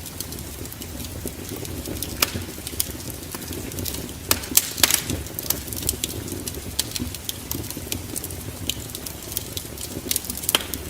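Wood fire crackling, with irregular sharp pops and snaps, a cluster of louder ones about four to five seconds in, over a low steady rumble.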